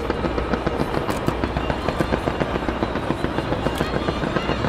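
Fireworks crackling in a rapid, continuous barrage of small pops, many per second.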